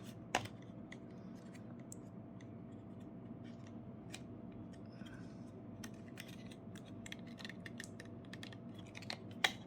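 Scattered light clicks and taps of small plastic parts being handled, with a sharper click about half a second in and another near the end, over a faint steady hum.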